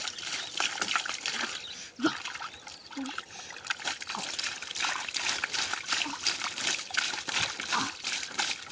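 Hands groping and splashing in a shallow pool of muddy water, making a continuous run of small irregular splashes, drips and trickles, with small fish stirring in the water.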